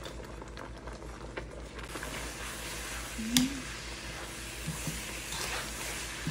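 Wooden spoon stirring ground gond and dry fruits into hot jaggery syrup in a metal wok, a dry scraping with a faint sizzle. One sharp click about halfway through.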